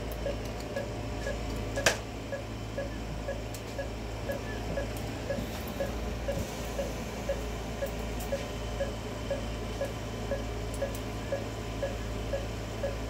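Anaesthesia patient monitor beeping in time with the dog's pulse, a short beep at one pitch about twice a second, over a steady low hum. A single sharp clink of a steel surgical clamp comes about two seconds in.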